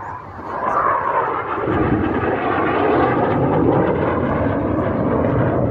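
Jet aircraft flying overhead at an air show, their engine noise swelling over the first second and a half, then staying loud and steady.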